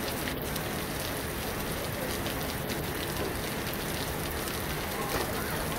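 Steady heavy rain falling, a constant hiss dotted with the ticks of individual drops.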